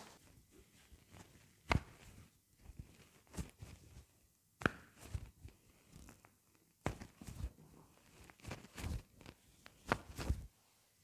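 Irregular rustles and soft knocks of shirt fabric and hands rubbing against a clip-on microphone as the back is pressed and gripped through the shirt.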